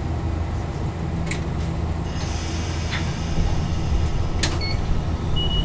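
Steady low electrical hum inside a stationary tram's cab, with a couple of sharp clicks and two or three short high beeps near the end.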